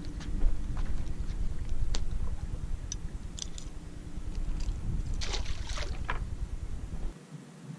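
Low rumble of wind and handling noise on the microphone with scattered light clicks from the fishing reel and rod. A short splash comes about five seconds in as a small hooked speckled trout is drawn up at the surface. The rumble cuts off suddenly about seven seconds in.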